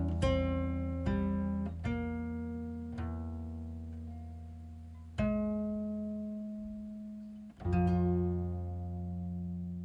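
Slow background music of plucked string notes, each left to ring and fade over a sustained low bass.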